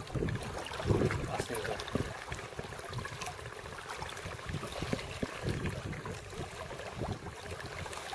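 Wind buffeting the microphone in an uneven low rumble, strongest about a second in, with faint water sounds from the lake around a canoe.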